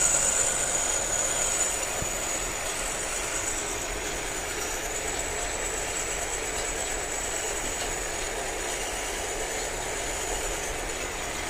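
Lathe running with the carriage on power feed while a boring tool cuts the bore of a gear: a steady machine clatter with a thin high whine, a little louder for the first couple of seconds, then even.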